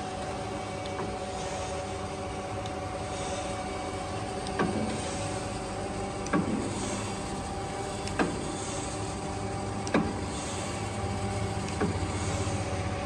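Freeport SGS-1632AHD surface grinder running with its cross travel in feed at minimum speed: a steady machine hum with several fixed tones. From about four and a half seconds in, a sharp knock comes about every two seconds, five times.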